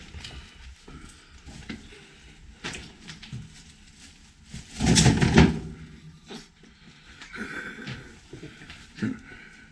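Footsteps scuffing and knocking in a shelter tunnel, with one louder thump and clatter about five seconds in.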